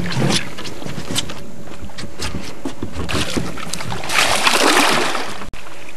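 A hooked wels catfish thrashing and splashing at the water's surface, in irregular bursts, the biggest splashing about four to five seconds in, over a steady background hiss.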